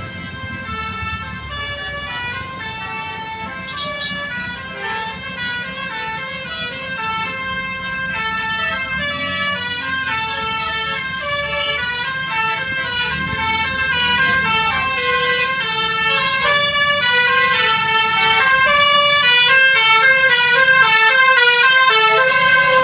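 Basuri telolet bus horn playing a tune: a quick run of stepped horn notes going up and down, growing steadily louder.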